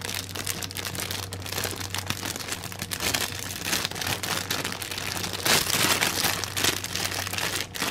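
Clear plastic packaging crinkling and crackling as it is handled around a tray of small plastic paint pots, with dense irregular crackles throughout, loudest about five and a half to six and a half seconds in.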